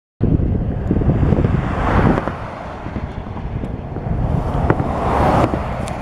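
Wind buffeting the microphone: a loud low rumble that swells twice and eases, with a few faint short high ticks over it.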